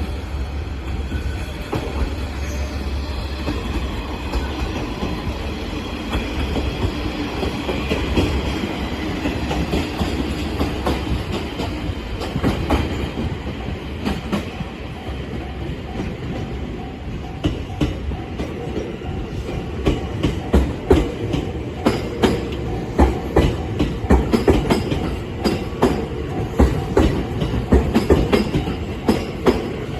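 A JR West train passing over a level crossing: a steady rumble, then, from a little past halfway, a rhythmic clickety-clack of wheels striking the rail joints that grows louder toward the end.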